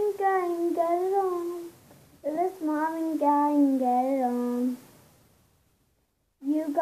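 A young boy singing unaccompanied: two drawn-out, wavering sung phrases, then a brief silence near the end before he starts again.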